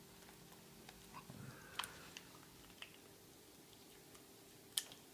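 A Jack Russell terrier chewing cooked chicken: faint, scattered clicks, the loudest near the end.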